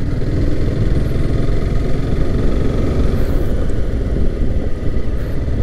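Motorcycle engine running steadily while riding over a rough dirt road, with a continuous low rumble of engine and road noise.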